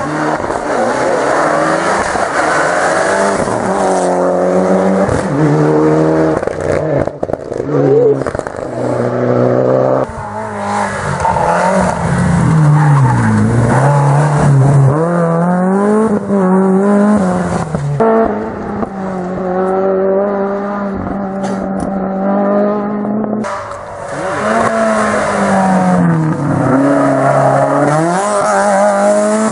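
Rally cars driven hard through tight tarmac bends, one after another, engines revving up and down through the gear changes as each car brakes and accelerates out of the corner.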